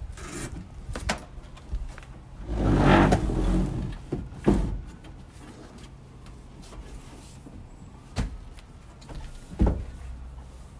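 Camper trailer's pull-out bed platform being slid out and the bed cushion set in place: one longer scraping slide about three seconds in, the loudest sound, and several sharp knocks and thumps of wood and metal parts spread through the rest.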